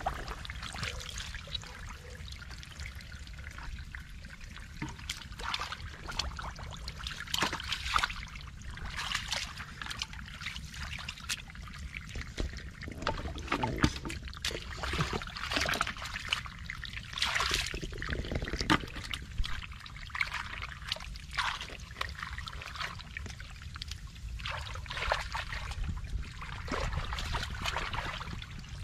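Hands sloshing and splashing in shallow muddy water, feeling for fish, with irregular wet splashes and drips throughout.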